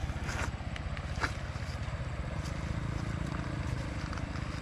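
Engine of a gold-mining machine running steadily with a fast low throb, and a few short sharp clicks on top.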